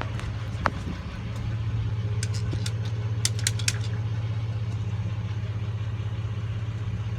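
Car engine idling with a steady low hum, with a few light clicks and rattles about two to four seconds in.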